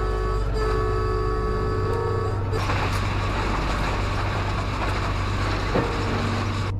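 Train horn sounding a steady multi-note chord for about two and a half seconds, then the loud, even rushing noise of the train running, cut off suddenly near the end.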